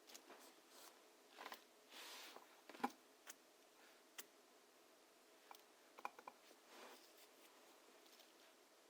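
Near silence in a small room, broken by a few faint, scattered clicks and soft rustling brushes.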